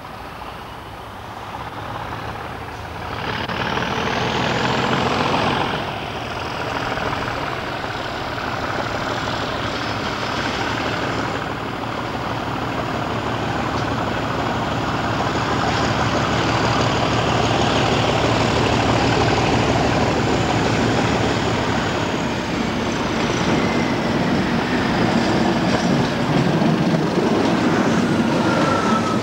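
Diesel locomotive hauling a train of tank wagons approaching along the line and running past, its engine and wheel noise growing steadily louder. A faint rising whine sounds in the first few seconds and a falling tone near the end.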